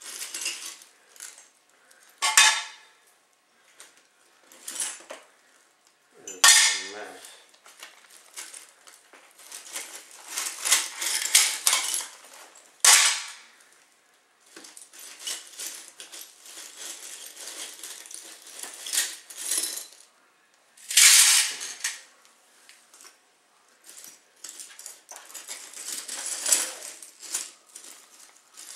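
Irregular clinking, scraping and rustling from a framed painting being handled and taken apart, with a few sharper knocks among the crinkly scrapes.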